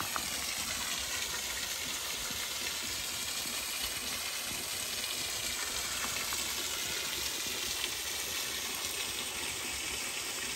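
Waterfall rushing steadily: an even hiss of falling water.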